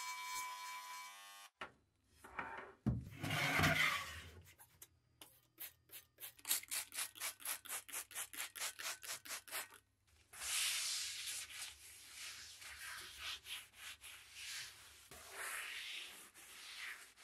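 Paper towel wiping and rubbing the bare, sandblasted cast iron skillet during its isopropyl alcohol cleaning. There is a loud rustling burst about three seconds in, then quick wiping strokes at about three a second, then steadier rubbing. In the first second and a half an electric engraver buzzes on the pan's base and then stops.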